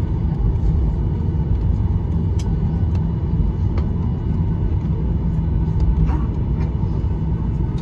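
Steady low rumble inside the passenger cabin of a Boeing 737-800 on the ground after landing, with a few faint clicks.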